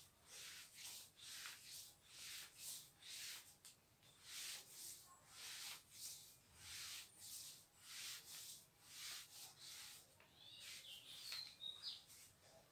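Marker pen writing on a whiteboard: a faint, steady run of short scratchy strokes, with a few high squeaks from the marker near the end.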